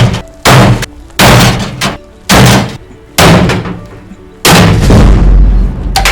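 A hammer striking the clothes dryer's sheet metal: loud, heavy blows about once a second, six in all, the last a longer crash with a low rumble.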